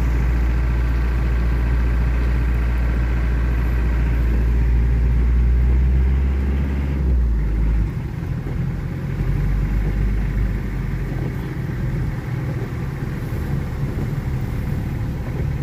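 A road vehicle's engine running in slow-moving traffic, with a steady low drone. About eight seconds in, the drone drops and turns rougher.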